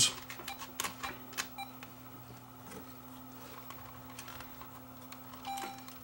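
Small clicks and handling noises from a Sony DCR-TRV340 camcorder's power switch being worked, a switch that will not keep the camcorder on, over a steady low hum.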